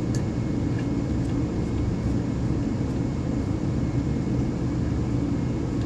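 Gas furnace running with its burners lit for an outlet gas pressure test: a steady low rumble.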